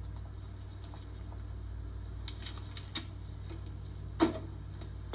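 Soundtrack of an inserted old movie clip: a steady low hum with a few light clicks and knocks, the sharpest about four seconds in.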